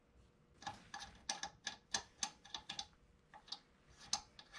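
Lug nut being spun by hand onto a wheel stud of a steel wheel: an irregular run of light metallic clicks and ticks, about three or four a second, stopping shortly before the end.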